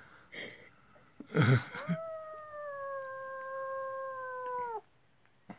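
Adult cat giving one long, low warning yowl of about three seconds, falling slightly in pitch and cutting off abruptly: a defensive growl at the kittens. A short burst of noise comes just before it.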